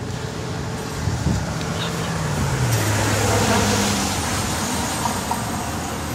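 A motor vehicle driving past: road noise swells to a peak about three seconds in and then fades, with a low engine tone that drops in pitch as it goes by.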